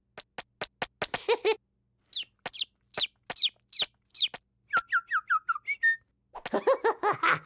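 Cartoon sound effects: a run of light ticks, then about six short falling whistle-like chirps at an even pace, then a quicker string of smaller falling chirps. Near the end a squeaky cartoon voice gives a short wavering call.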